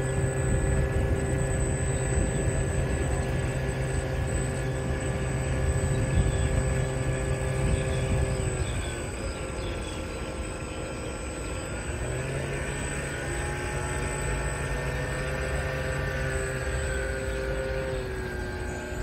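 Steady whine of small electric motors made of several held tones, dropping in pitch about nine seconds in and climbing back about three seconds later.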